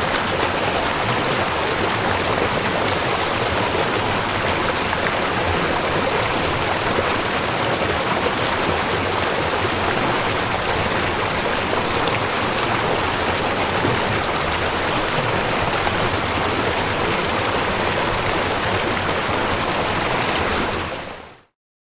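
River flowing: a steady rushing of water that fades out just before the end.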